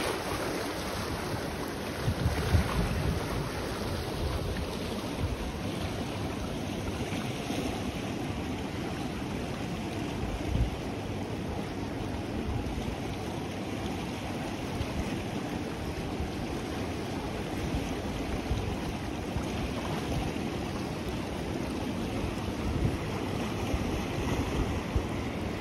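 The Ganges rushing past, its fast, turbulent current making a steady rush of water, with a few gusts of wind buffeting the microphone in the first few seconds and again about ten seconds in.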